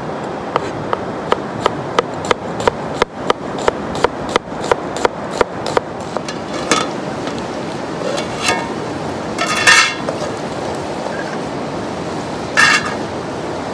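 Steel cleaver chopping onion on a plastic cutting board: sharp knocks about three a second for the first six seconds or so. Later come a few louder scrapes and clanks, over the steady rush of a river.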